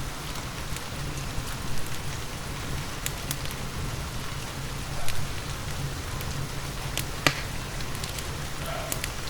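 Steady rain mixed with a crackling wood fire: a constant hiss and low rumble with scattered sharp pops and snaps from the burning logs, the loudest about five and seven seconds in.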